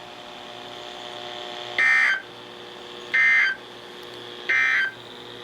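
Three short bursts of high data tones, the EAS end-of-message code sent by NOAA Weather Radio at the close of a severe thunderstorm warning and heard through a weather radio's speaker, about 1.3 seconds apart. A faint steady hum lies under them.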